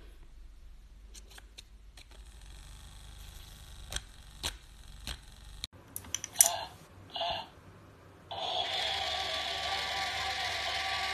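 No-Face (Kaonashi) coin-bank toy whirring steadily as its motor starts about two-thirds of the way in, after two short clinks about a second apart. Before that there are only a few faint ticks.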